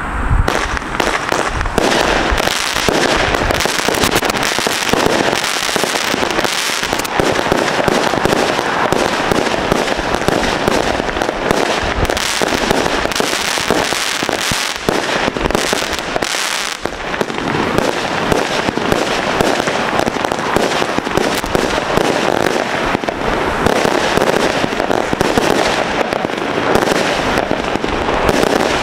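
Winda "Fortune & Prosperity" 138-shot fireworks cake firing in rapid succession: a dense, continuous stream of launch thumps and aerial shell bursts.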